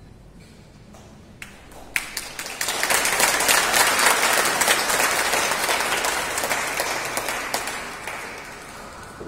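Audience applauding: a few scattered claps about a second in, swelling quickly into full applause, then fading out near the end.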